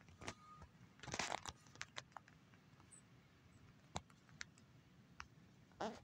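A distant vehicle's backup beeper gives a faint steady high tone that cuts off just over half a second in. Then come two short, louder rustling noise bursts, about a second in and near the end, with scattered faint clicks between them.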